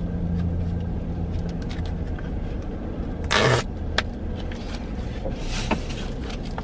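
Steady low hum of a parked minivan idling, heard from inside the cabin, with small handling clicks. A short rustle comes about three seconds in, followed by a sharp click.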